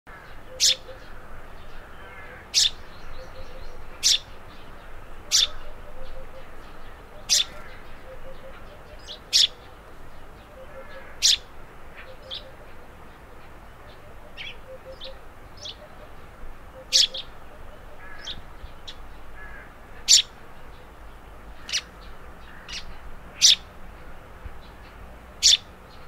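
Eurasian tree sparrow chirping: short, sharp high notes repeated every one to two seconds, with softer chirps in between.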